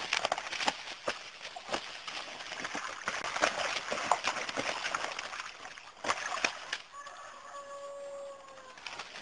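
A rooster and a duck fighting: rapid, irregular wing flapping and scuffling for the first several seconds. A rooster then crows once near the end, a single held call of about two seconds.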